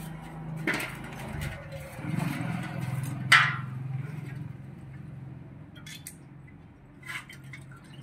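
Light metallic clicks and clinks of a scooter piston and its piston rings being handled during ring fitting on a Honda Dio 110 cc engine, with one sharper clink about three and a half seconds in. A steady low hum runs underneath.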